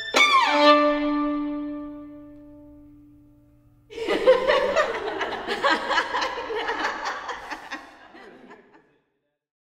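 Violin's final gesture: a sharp accent and a quick downward slide into a low note that rings and fades away over about three seconds. About four seconds in, laughter breaks out suddenly and dies away near the end.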